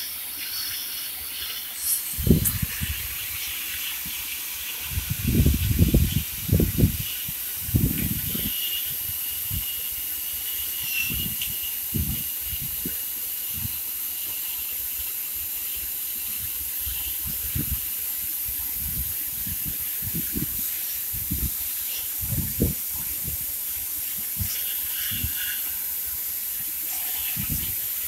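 Steady hiss from a CNC profile cutting machine's torch as it cuts, with irregular low thumps, heaviest in the first third.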